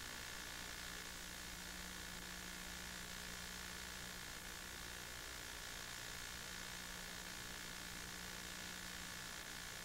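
Steady hiss with a faint, even electrical hum and no other sound: the noise floor of an old home-movie film transfer.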